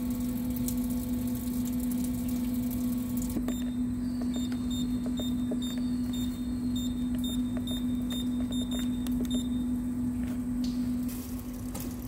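Short high electronic beeps from the keypad of an SW4000 lathe digital readout as its buttons are pressed, a dozen or so over several seconds, over a steady machine hum.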